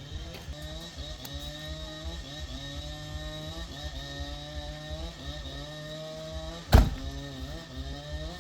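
A motor running steadily with a slowly wavering pitch, with one sharp loud knock about seven seconds in.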